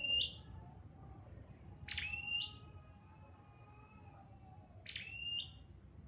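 Red-headed tailorbird (chim sâu đầu đỏ) calling: three loud, sharp calls about every two and a half seconds, each a quick downward sweep into a held whistle with a short higher note tacked on. Fainter, lower bird notes go on underneath.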